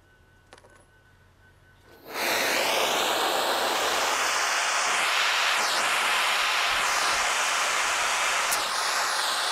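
Near quiet, then a loud, steady hissing rush starts abruptly about two seconds in and keeps going, its tone shifting slightly now and then.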